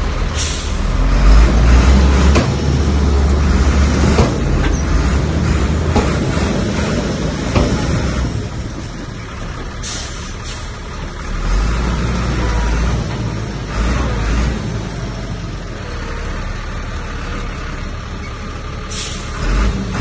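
Heavy diesel earthmoving machinery working: a deep engine running under load that grows louder in two stretches, with sharp knocks and short hisses now and then.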